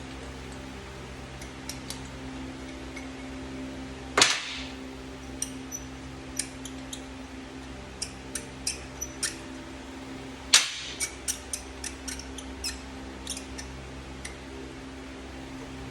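Sharp metal clinks and knocks of tools and engine parts being handled during a motorcycle top-end teardown, with two much louder knocks about four seconds in and again about six seconds later. A steady electrical hum runs beneath.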